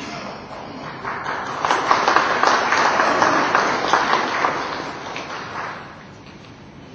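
Audience applauding: the clapping builds over the first second or two, holds, then fades out about six seconds in.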